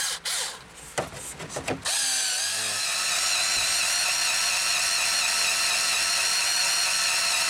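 Cordless drill running steadily as it bores a hole through plastic dash trim, a continuous whine that starts about two seconds in after a few handling clicks.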